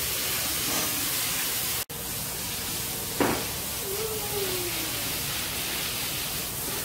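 Water hissing steadily from a garden hose spray nozzle as it is sprayed onto a dog's coat and the wet concrete floor.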